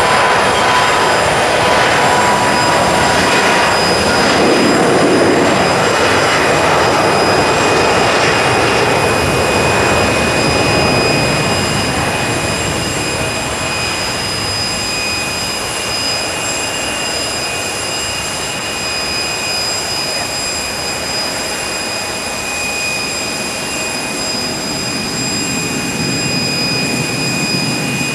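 Boeing 737-400 jet airliner's CFM56 turbofan engines at takeoff thrust as it rolls down the runway, lifts off and climbs away. The jet noise is loudest in the first ten seconds or so, then eases slightly and holds steady as the aircraft climbs.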